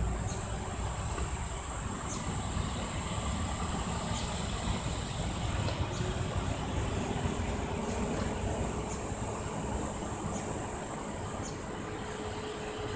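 Outdoor background: a steady low rumble under a continuous high-pitched insect trill, with a faint steady hum coming in about six seconds in.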